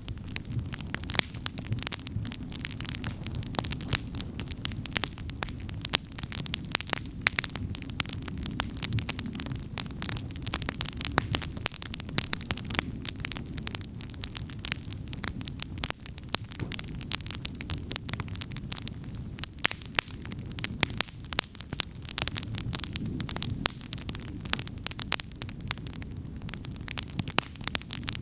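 Wood campfire crackling and popping, many sharp irregular snaps over a low steady rumble.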